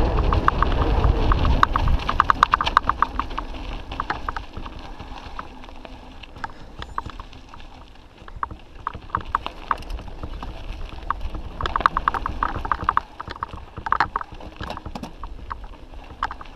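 Mountain bikes rolling down dirt singletrack: quick runs of ticking from a freewheel hub while coasting, with scattered rattles and knocks over bumps. Wind rumble on the microphone is heavy in the first couple of seconds and fades after about four seconds.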